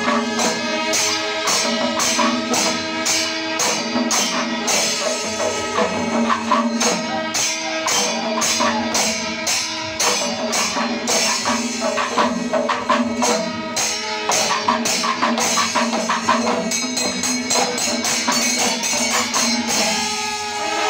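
Kerala Panchavadyam temple ensemble playing: maddalam barrel drums and metal cymbals beating a dense rhythm under long held notes from curved kombu horns. About three-quarters of the way through, the strokes come faster and closer together.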